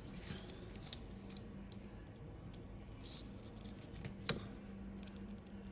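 Light clicks and scraping of a rubber wiper-blade refill being pushed along into the wiper blade's frame, with one sharp click about four seconds in. A faint steady hum sits underneath.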